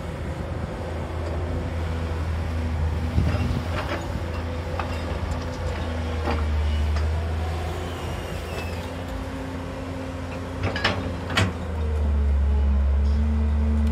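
JCB tracked excavator's diesel engine running under hydraulic load, its low drone swelling as the boom and bucket work and growing strongest near the end as the bucket digs into the pit. A few sharp knocks sound about three seconds in and twice shortly before the end.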